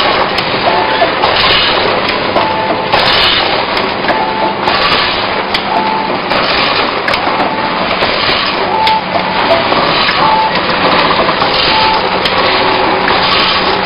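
Fried bean snack triangle-bag packing machine running: continuous mechanical clatter and rattling with frequent sharp clicks.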